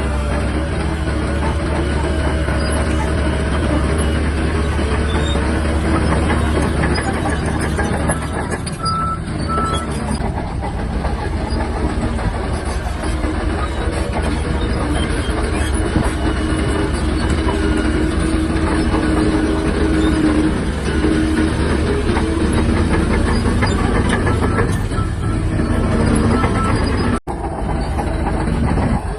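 Shantui DH17-C3 crawler bulldozer working: its diesel engine running steadily under load with the steel tracks clattering. The sound breaks off for an instant near the end.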